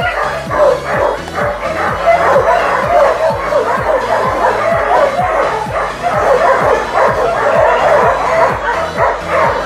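Many dogs barking and yelping at once, over background music with a steady beat.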